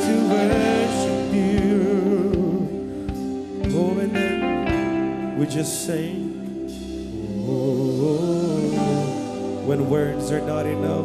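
Live worship band playing a slow praise song, with a singing voice held over sustained chords and drums, and a cymbal crash near the middle.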